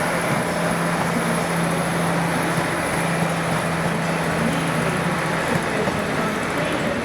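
Train at a station platform, running with a steady low hum and noise; the hum stops about five and a half seconds in.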